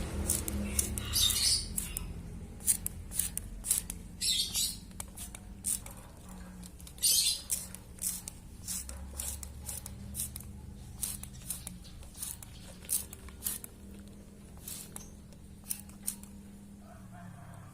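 Hand spray bottle spritzing water in three short hisses onto a caged bulbul being bathed, among many small clicks and taps as the wet bird flutters and hops about the cage.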